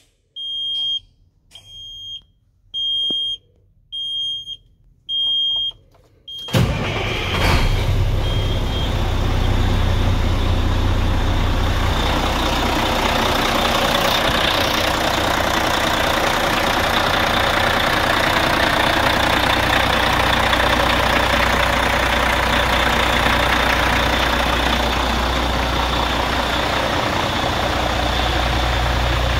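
Cold start of a 2005 Kenworth T800's diesel engine. A high in-cab warning beep sounds about once a second at key-on, then the engine catches about six seconds in and settles into a steady idle.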